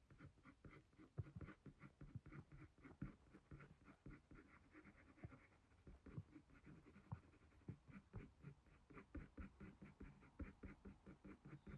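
Faint, quick strokes of a 4B graphite pencil scratching on hot-pressed drawing paper, about three to four short flicks a second, as fine fur hairs are drawn.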